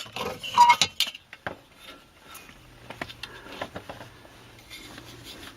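Hard plastic and metal objects being handled: a quick cluster of clicks and clinks in the first second, then scattered lighter clicks and rattles. A faint low hum runs through the second half.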